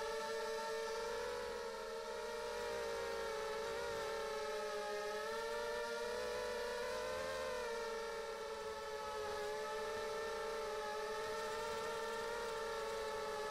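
Brushless motors and propellers of a 250-size FPV racing quadcopter whining steadily in flight, the pitch wavering up and down as the throttle changes, with brief slight dips in loudness.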